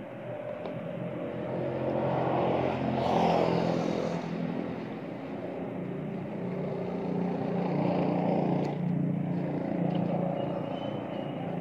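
A motor vehicle's engine running with a low, steady hum that swells louder twice, about three seconds in and again around eight seconds.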